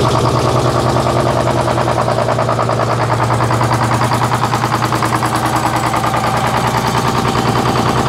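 Detroit Diesel 6-71 two-stroke inline-six diesel running steadily with a rapid, even exhaust pulse, just started after an oil change with its new oil being pumped up to pressure.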